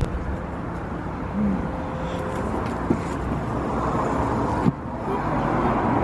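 Steady road traffic noise from passing cars, with a faint click about three seconds in and a sharper knock near five seconds.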